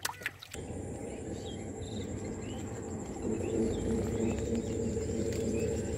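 Countryside ambience: a steady high-pitched insect trill with scattered bird chirps, and from about three seconds in, a dove's low repeated cooing. At the very start, a brief splash of water.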